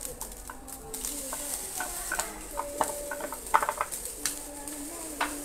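Wooden spatula stirring fried rice in a wok, with irregular knocks and scrapes against the pan over a faint sizzle, as green peas and grated carrot are tipped in from a plastic container.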